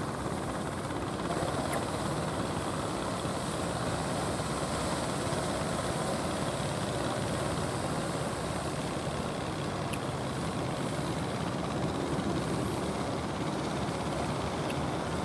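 Steady engine drone of a wooden fishing boat motoring in from the sea, over a constant wash of noise.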